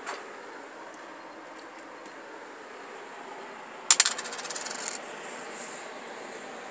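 Homemade ball-electrode spark gap on a 15 kV DC supply with a bottle capacitor bank firing: a sharp crack about four seconds in, then a rapid crackling train of sparks for about a second with a thin high whine over it, dying away soon after. A single small click comes right at the start.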